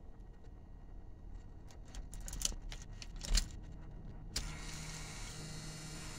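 Keys jangling and clicking as a key is pushed into a 1982 K20 pickup's steering-column ignition lock and turned, with a sharp click about three and a half seconds in. A second later a steady hiss with a low hum comes on suddenly as the ignition is switched on, with no cranking yet.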